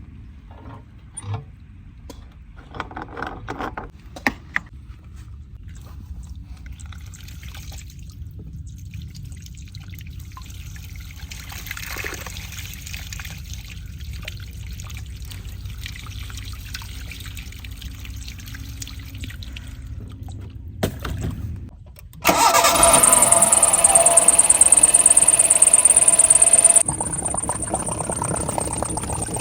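A car engine running with a steady low hum, with a few clicks over it. About three-quarters of the way through, a much louder rushing hiss with a high whine cuts in for about five seconds, then drops away.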